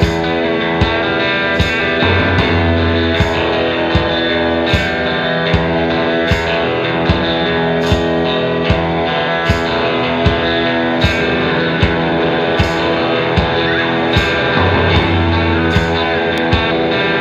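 Rock song played by a band: electric guitar over a steady drum beat, with no singing.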